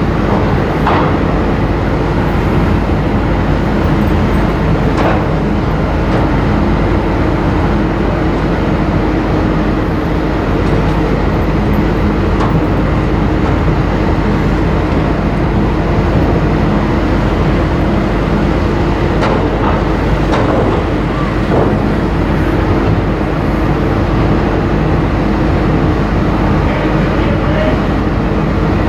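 Steady low drone and hum of the ferry MV Salish Eagle's engines and machinery as she gets under way, with a few faint clicks.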